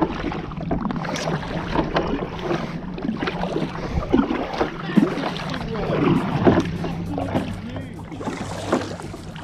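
Kayak paddling: the double-bladed paddle dips and splashes repeatedly, and water sloshes along the hull of a sit-on-top Next Gen 10 kayak, over a steady low hum.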